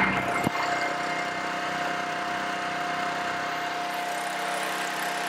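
Small gas engine of a GX50 injector running steadily, driving its pump while the flow is switched to the nurse tank. A single sharp knock about half a second in.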